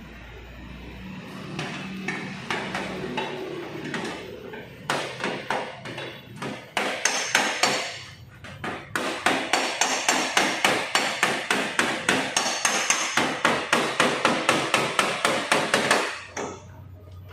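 Hammer blows, a few at a time at first, then a steady run of about three to four strikes a second that stops shortly before the end.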